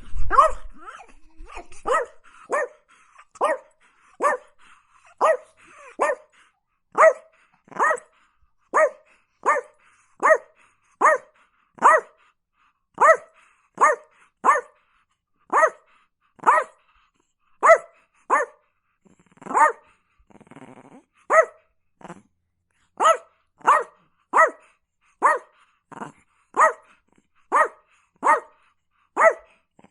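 Chihuahua barking steadily and repetitively, with short, high-pitched yaps a little more than one a second. A brief growl comes about two-thirds of the way through.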